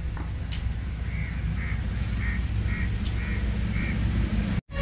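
A bird calling in the background: a run of six short, evenly spaced calls, about two a second, starting about a second in, over a steady low rumble.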